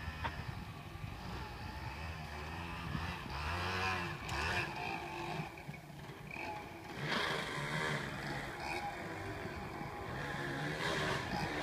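Enduro motorcycle engines at a distance, revving up and down, swelling louder several times.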